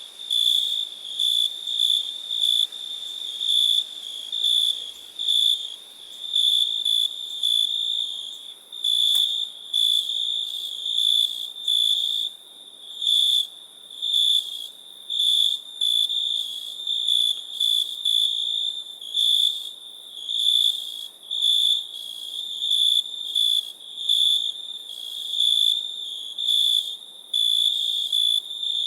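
Cricket chirping: a high, steady-pitched trill repeated in pulses a little more than once a second, over a faint hiss.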